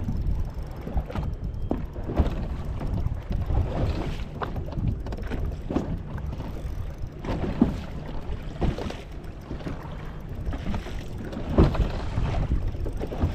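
Wind rumbling on the microphone aboard a boat on open water, with irregular splashes of waves against the hull.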